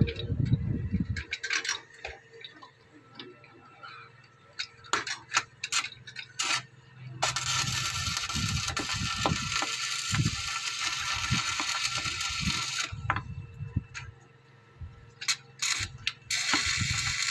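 Electric arc welding on steel rebar: a steady crackling sizzle of the arc that runs about six seconds from near the middle, stops, and starts again near the end. Scattered clicks and knocks come before the first weld.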